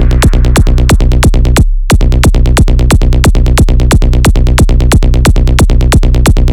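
Electronic dance music with a fast, even beat over a heavy bass line; the track drops out for a moment about two seconds in, then the beat comes straight back.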